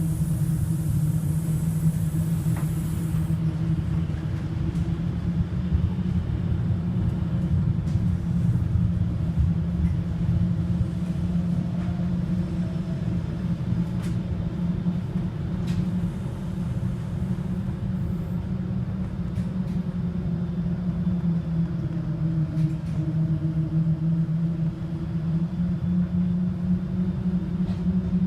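Inside a moving city bus: a steady low hum from the drivetrain with road rumble underneath, and a faint whine that drifts up and down as the bus travels.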